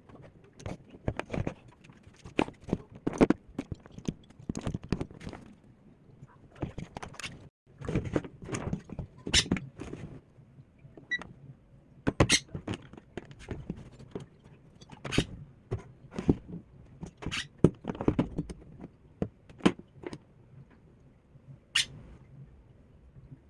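Irregular knocks, clicks and light metallic clinks of parts and tools being handled while working on a microwave oven.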